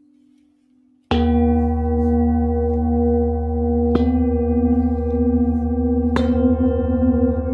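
Metal singing bowls struck three times: about a second in, again about three seconds later, and once more two seconds after that. Each strike rings on in several layered tones that waver, over a deep low hum.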